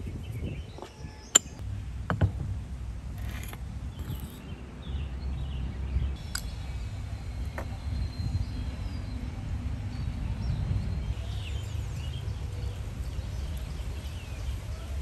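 Outdoor ambience: a steady low rumble with faint bird chirps, and two sharp clicks or knocks, the first about a second and a half in.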